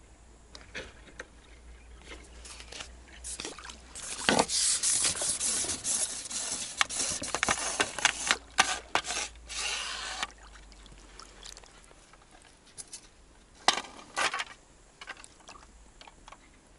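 Close rubbing and scraping handling noise as an angler hooks a roach on a long pole rod and swings it out of the water. The noise is loudest for about six seconds from about four seconds in, with a second short burst near the end.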